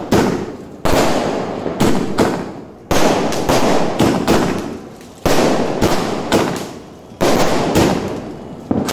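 A 50-shot aerial fireworks cake firing: sharp reports about once a second, each followed by a fading crackle.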